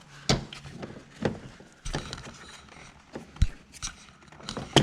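Several sharp plastic clicks and knocks, spaced irregularly, as wiring connectors behind a car door card are unplugged and handled.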